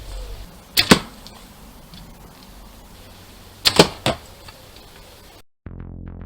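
A bow loosing arrows twice, about three seconds apart; each shot is a quick double or triple sharp snap of the string and the arrow striking. Electronic synth music starts abruptly near the end.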